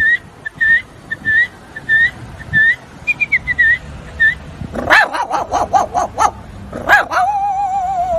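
A man imitating a dog with his voice: a string of short, high, rising whimpering yelps about every half second, then a quick run of barks, then a long wavering howl near the end.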